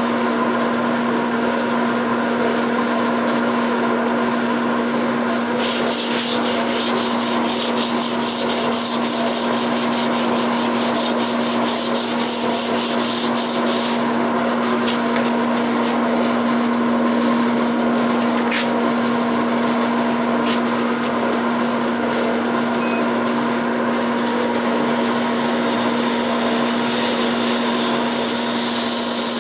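Record Power Harald lathe running with a steady hum while sandpaper rubs against the spinning walnut handle. The hissing rub comes in two stretches, the second starting near the end.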